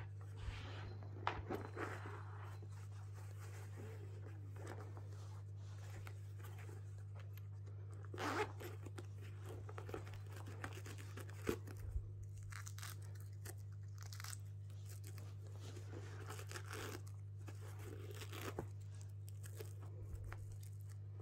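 Hands working the fabric fasteners of a felt quiet book: scattered short rasping tears and clicks, with a steady low hum underneath.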